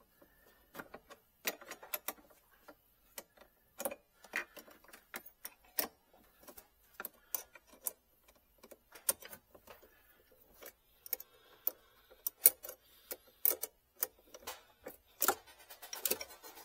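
Scattered sharp metallic clicks and taps, some in quick clusters, from a hand tool working the negative terminal clamp of a car battery loose.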